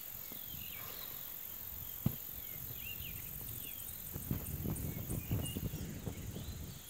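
Open-country ambience: a steady high insect drone with many short chirps scattered through it. A single sharp click comes about two seconds in, and low rustling thuds follow in the second half.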